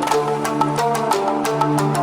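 Electronic music with a steady percussive beat and a sustained bass note.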